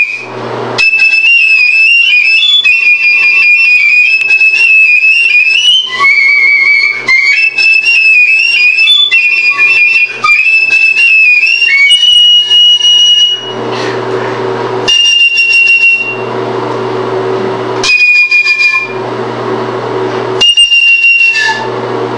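Piccolo playing a fast passage of very high notes, then several short held high notes separated by pauses.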